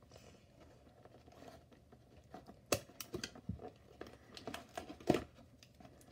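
Cardboard doll box and plastic packaging being handled: rustling and crinkling with a few sharp clicks and taps, as the doll is worked loose from its packaging ties.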